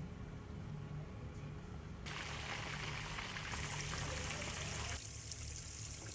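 Water running or pouring in a kitchen, coming on about two seconds in and turning thinner and hissier near the end, over soft background music.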